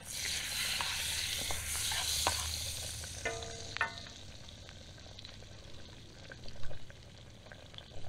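Hot fat sizzling in a carbon steel frying pan over campfire coals while a wooden spatula works it around, loudest for the first three seconds and then dying down to a quieter sizzle. A few light clicks and taps come through in the second half.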